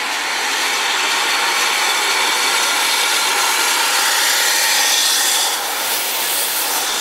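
Steam escaping from a double-headed pair of GWR steam locomotives, a 9600 pannier tank and a Castle class, as a loud steady hiss that starts suddenly and eases slightly about five and a half seconds in.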